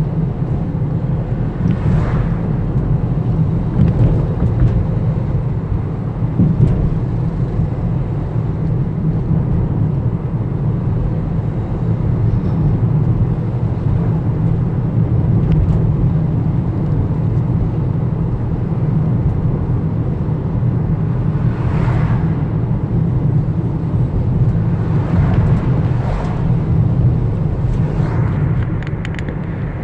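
Steady low rumble of a road vehicle on the move, engine and tyre noise heard from inside, with a few brief swells.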